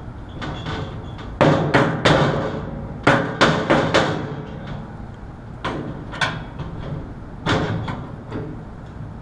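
About ten sharp knocks and bangs in uneven clusters, most of them one and a half to four seconds in and a few more later, from hands-on work on an air-conditioner condenser's sheet-metal cabinet.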